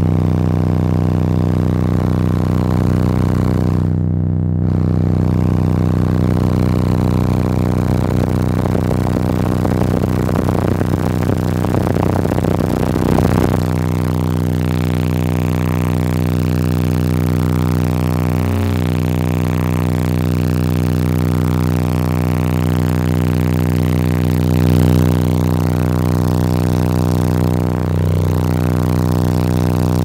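Wall of twelve DB subwoofers in the car's cabin playing a steady 31 Hz test tone, heard as a loud, unbroken drone with a dense stack of overtones. About halfway through the deepest rumble drops out and the tone sounds cleaner.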